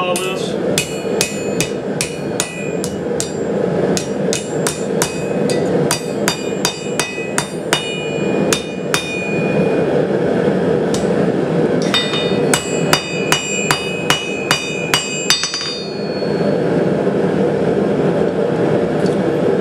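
Hand hammer striking red-hot steel on an anvil, each blow with a bright metallic ring: a run of about three blows a second for the first nine seconds, a pause of a few seconds, then a faster run of blows that stops at about three-quarters of the way through. A steady low rumble underneath.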